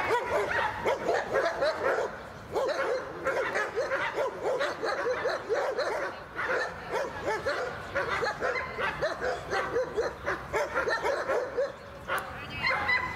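A dog barking over and over in quick excited runs of short barks, several a second, with a short pause about two seconds in and fewer barks near the end.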